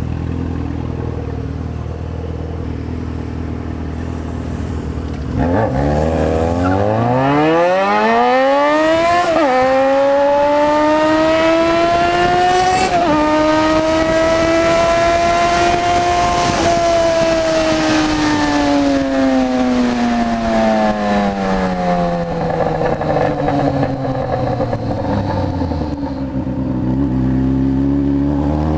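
Yamaha XJ6's 600 cc four-cylinder engine pulling away from low revs about five seconds in, rising through two quick gear changes, then holding and slowly easing off before picking up again near the end.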